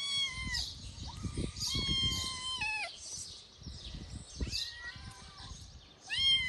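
Young kittens meowing repeatedly: about five high-pitched meows, the longest about two seconds in and the loudest near the end.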